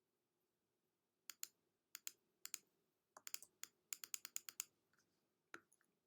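Faint clicking at a computer, keys and buttons being pressed: after a second of quiet, three pairs of clicks, then a quick run of about a dozen, and one last click near the end.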